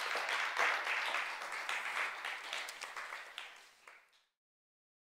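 Audience applauding, a dense patter of many hands, fading and then cut off about four seconds in.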